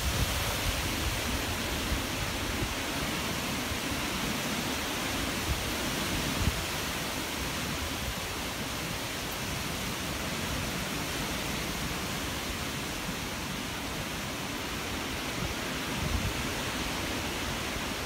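Strong wind gusting through tall leafy trees: a steady rushing hiss of leaves, with a couple of brief low rumbles of wind on the microphone.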